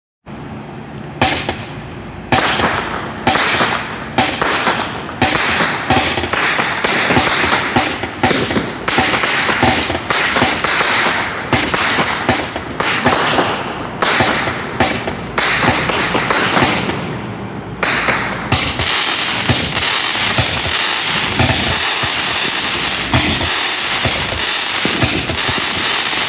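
Black Cat Rapid Fire 66-shot firework cake firing: sharp shots and bursts about two a second. About eighteen seconds in they give way to a denser, steady rushing hiss with many small pops.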